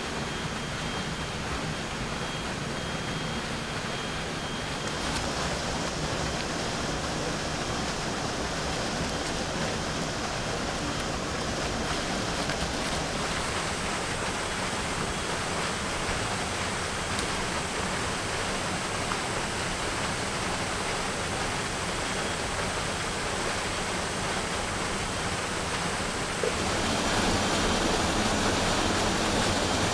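Steady rush of flowing water, such as a forest stream or waterfall. Its sound changes about five seconds in and grows louder near the end.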